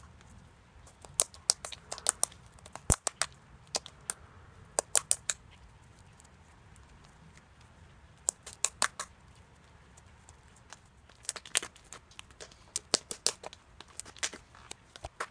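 Slime being squished and poked by hand, making quick runs of sharp wet clicks and pops, with pauses between the runs.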